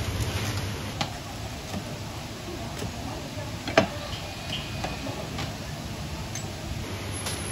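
Scattered light clicks and taps of kitchen utensils at work, with one sharper knock near the middle, over a steady low hum.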